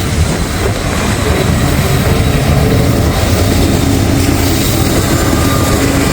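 Two mid-train Norfolk Southern diesel locomotives (a double DPU) in a long freight train passing close by with their engines running, under a steady, loud rumble. Strong wind buffets the microphone.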